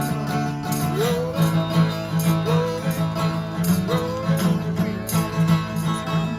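A plucked string instrument playing a steady, repeating accompaniment, with gliding, rising and falling notes over it about once a second.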